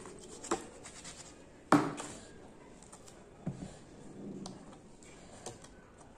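Orange peel being torn away from the fruit by hand: a few short tearing and crackling sounds, the loudest a sharp snap a little under two seconds in.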